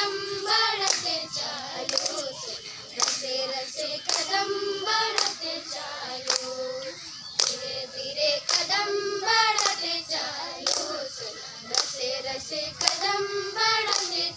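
A group of girls singing a folk song together, with hand claps keeping a steady beat.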